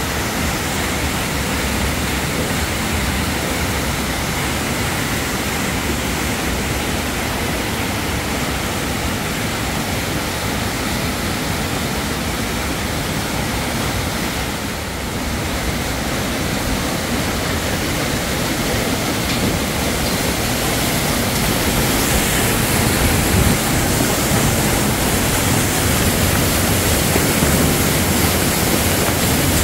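Small waterfall pouring over rock into a narrow canyon: a steady rush of splashing water that grows a little louder in the last third.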